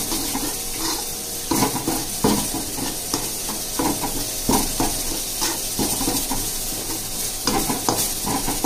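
A perforated metal spatula stirs and scrapes ground coriander roasting in a metal kadhai, over a steady frying sizzle. The scraping strokes come irregularly, about once a second.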